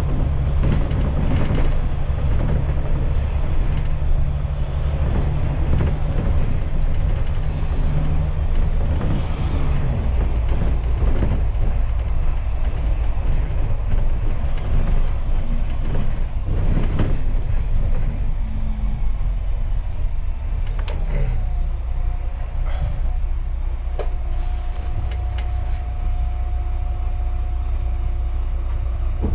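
Interior of a double-decker bus on the move: steady engine drone and road rumble. A thin high squeal, like brakes, rises briefly about two-thirds of the way through, and after it a steady hum remains under the engine.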